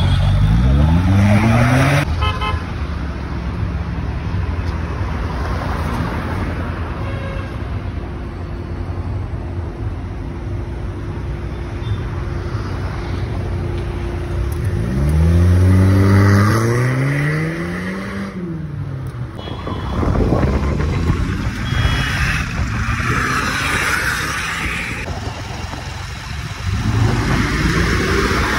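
Audi TT's inline four-cylinder petrol engine accelerating through a loud exhaust, rising in pitch at the start, running steadily, then revving up and dropping back again about halfway through, with road noise as the car drives past near the end.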